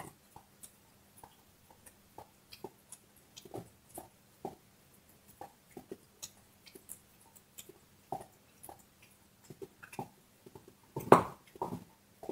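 A dog gnawing a bone: irregular crunches and clicks of teeth on bone, a few to the second, with a louder burst of crunching about eleven seconds in.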